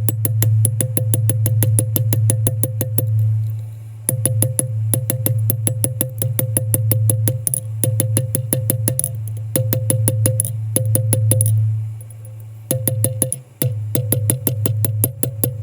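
Background electronic music: a steady, quick beat of ticks, about five a second, over a held bass note that drops out briefly now and then.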